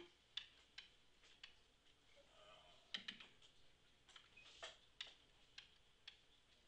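Faint, irregular clicks and taps of a stylus on a digital writing screen as letters are written, about a dozen in near silence.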